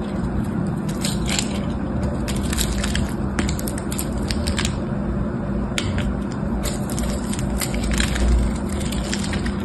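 A craft knife cutting into a dry, hard bar of soap, with repeated crunching and crackling as small cubes and slices break off, over a steady low hum.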